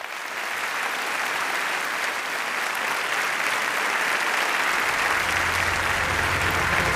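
A large audience in a theatre hall applauding steadily.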